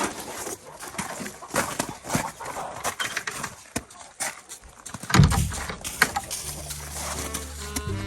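Irregular scraping, rustling and knocking of barn chores among livestock, then background music with a steady low note comes in about five seconds in.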